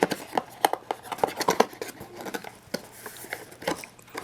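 Packaging of humidifier demineralization cartridges being opened by hand: irregular small clicks, scrapes and rustles of the package.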